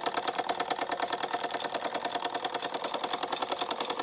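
Carette 677 toy steam engine running and driving a Carette 195/10 tin blacksmith figure, its hammer tapping fast and evenly. The engine's works and the hammer make a steady, rapid clatter.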